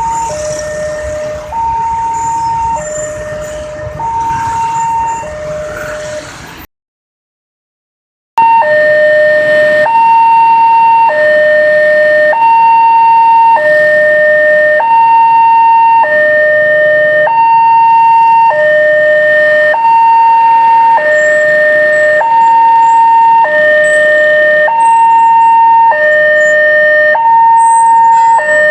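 Railway level-crossing warning siren sounding through its horn loudspeaker, a steady two-tone hi-lo alternation switching about every second, warning that a train is approaching. It breaks off for about two seconds about seven seconds in, then comes back much louder.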